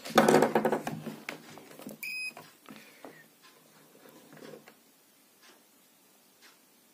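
Rustling and clattering as the wired woofer circuit board and test leads are handled, then about two seconds in a short beep from a digital multimeter set to its continuity range, followed by faint ticks of the probe tips on the wires.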